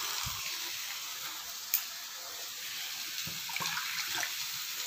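Boiled elephant foot yam pieces and masala sizzling in hot oil in a steel kadhai, a steady hiss, with one sharp click about two seconds in and a few faint knocks later on.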